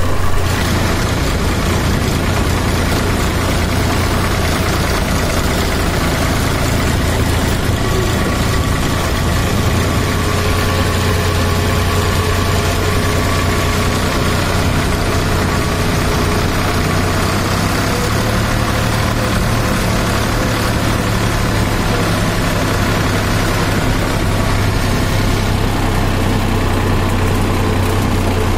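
New Holland farm tractor's diesel engine running steadily with a deep, even hum as it drives along a rocky dirt track, heard close up from the driver's seat.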